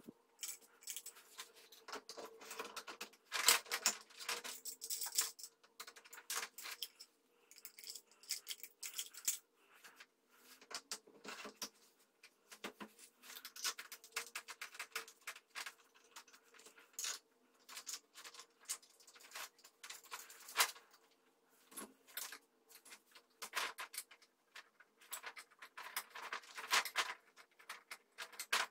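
Metal parts of a rifle sighting rest being handled and fitted together by hand: irregular clicks, clinks and scrapes of steel plates, bolts and tools against each other and on the table.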